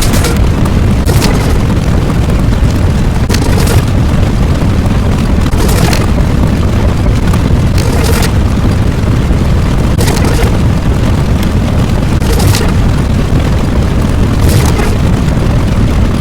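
Explosion-like sound effect: a loud, continuous deep rumble with sharp cracks every second or two.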